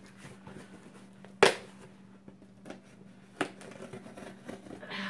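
Box cutter slitting the packing tape on a cardboard shipping box, with a sharp knock about a second and a half in, a smaller one near three and a half seconds, and the blade scraping along the tape near the end.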